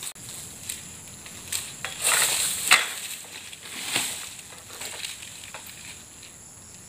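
Pole-mounted oil palm harvesting sickle (an SBL M222A) rasping and cutting into the crown of a tall oil palm, with crackling strokes and rustling fronds. It is loudest about two to three seconds in and again around four seconds.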